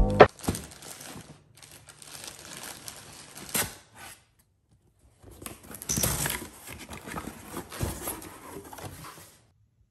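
Handling of packaging: rustling and scraping as a knife slits the packing tape on a cardboard box, with a sharp scrape a few seconds in. After a short pause, the cardboard flaps are pulled open with a burst of scraping and rustling.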